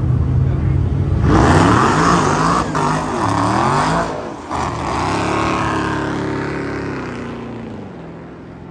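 Two drag-racing cars idling at the starting line, then launching hard about a second in, their engines revving up and breaking off at each gear shift, fading steadily as they run away down the strip.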